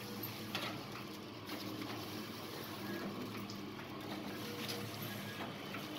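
Automatic salt packing machine running: a steady motor hum under an even hiss, with scattered light clicks.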